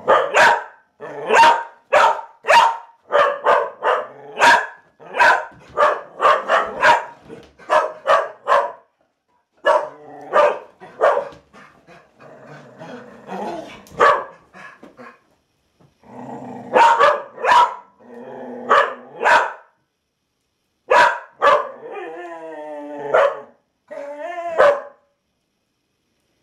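Dog barking in rapid volleys of short, sharp barks with brief pauses, breaking into a wavering whine near the end. It is the excited alert barking of a springer spaniel at sheep spotted outside.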